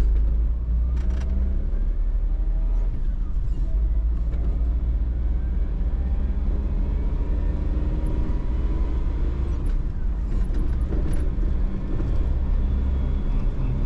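Suzuki Jimny's engine and road noise heard inside the cabin while driving, a steady low rumble.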